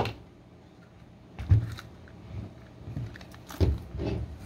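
Plastic chassis and rubber tyres of a toy RC monster truck knocking on a tabletop as it is handled and turned over: a sharp click at the start, then several dull thumps and knocks about one and a half seconds in and again near the end.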